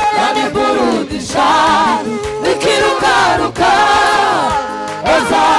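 Gospel worship team singing a chorus together into microphones, several voices in harmony holding long notes over musical backing.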